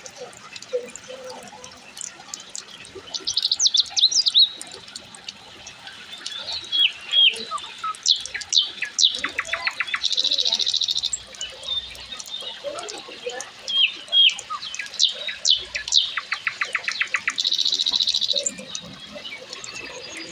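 Rainforest birds calling: many short, sharp chirps and whistles. Twice, one bird gives a song of rapid ticking notes that runs into a buzzy trill.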